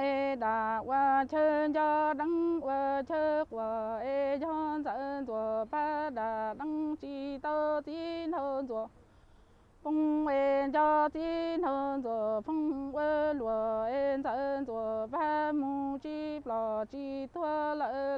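A woman singing Hmong lug txaj (kwv txhiaj, sung poetry) solo and unaccompanied, in long wavering, ornamented phrases. There is a pause of about a second for breath just before the middle.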